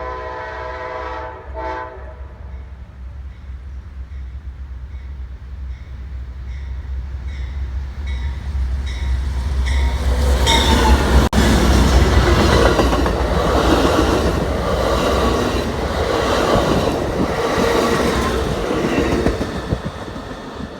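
A train horn sounds a short chord, then the rumble of two GE P42DC Genesis diesel locomotives builds as they approach. They pass loudly about ten seconds in, followed by a string of passenger cars clacking rhythmically over the rails, fading near the end.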